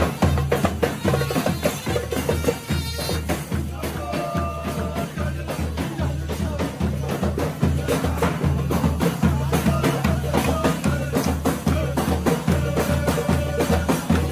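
Live Turkish folk music: a davul bass drum beaten in a steady rhythm with frame drums, and a wind instrument's melody coming in over the beat in a couple of short passages.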